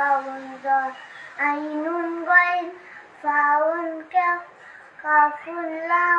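A young girl singing alone without accompaniment, in short phrases of held, gliding notes with brief breaks between them.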